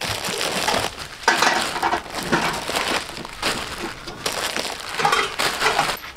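Crinkling and rustling of plastic instant-noodle packets, handled in a run of irregular bursts as they are lifted from a cardboard box and dropped into a plastic basket.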